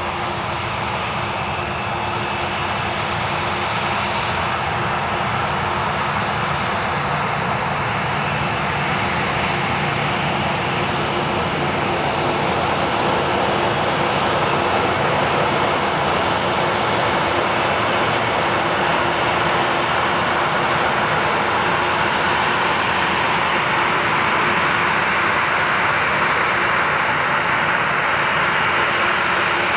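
Boeing 737-800's CFM56-7B turbofan engines running at taxi power: a steady jet rush with a low steady hum, growing slowly louder as the airliner taxis closer.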